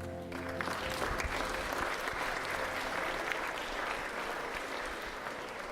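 Church congregation applauding after a worship song, steady clapping that begins about half a second in and slowly eases off near the end.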